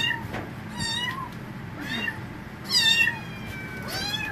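Young kittens meowing at feeding time, crying instead of eating from their dishes: about five high-pitched meows, the loudest near three seconds in.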